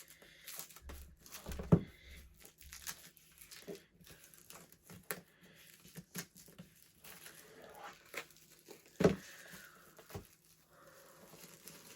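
Apple Magic Keyboard box's packaging being cut and pulled open: crinkling and tearing with scattered small clicks. There are two sharper knocks, about two seconds in and about nine seconds in.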